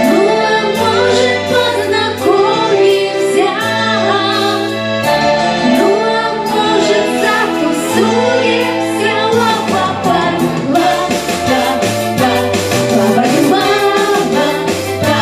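A song performed with singing over instrumental accompaniment, with held bass notes that change every second or two and a steady beat.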